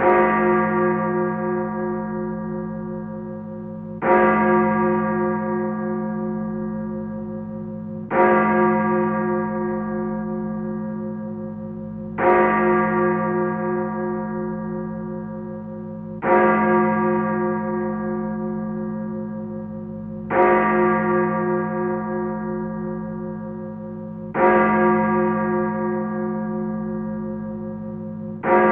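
A single church bell tolling slowly, struck about every four seconds at the same pitch. Each stroke rings on with a deep hum and fades, still sounding when the next stroke comes.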